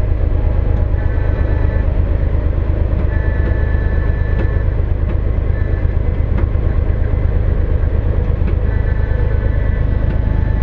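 A loud, steady low engine drone, with a faint high steady tone that comes and goes several times.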